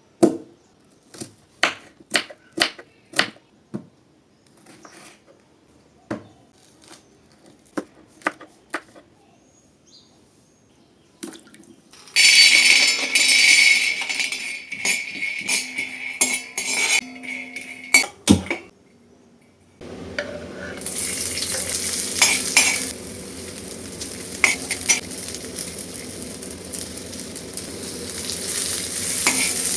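Utensils clinking and knocking against a cooking pan in a quick run of sharp strikes, then fainter taps. About twelve seconds in, loud sizzling of food frying in hot oil starts. A sharp knock comes near eighteen seconds, and a steadier sizzle fills the last ten seconds.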